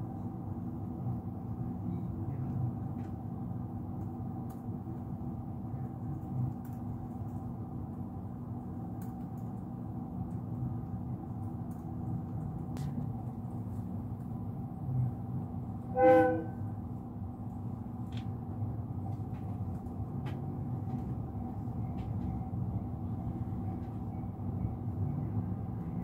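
Interior of an E657-series limited express train running along the track: a steady low rumble with a faint steady hum. About two-thirds of the way in, a single short train horn blast sounds.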